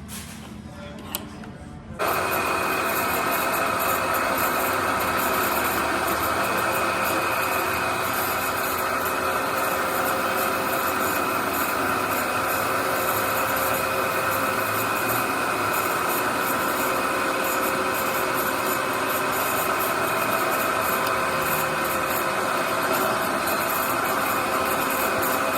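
A workshop machine starts suddenly about two seconds in and runs steadily, a loud noise with a steady whine through it. Light ticking comes before it.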